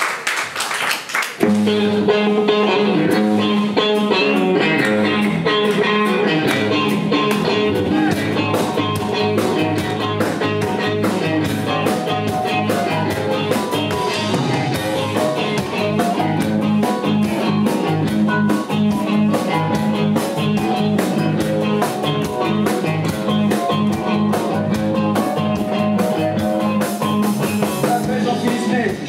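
Live rock-and-roll band playing an instrumental intro on electric guitars, bass and drum kit, the full band coming in together about a second and a half in over a steady, repeating bass line.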